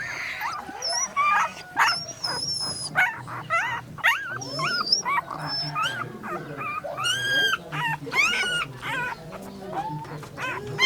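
Puppies whimpering and yipping: a steady stream of short, high-pitched whines that rise and fall, several overlapping at different pitches.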